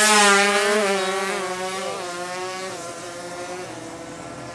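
Two-stroke 155cc drag-race motorcycle engine at full throttle, loudest at the start and fading steadily as it speeds away, its pitch sagging and dipping briefly a few times.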